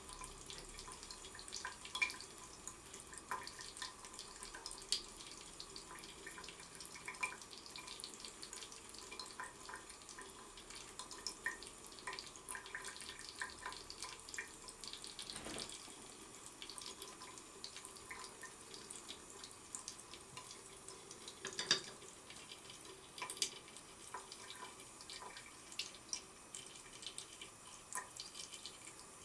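Thin stream of water running from a tap into a sink, spattering steadily, with frequent short ticks and a few louder splashes.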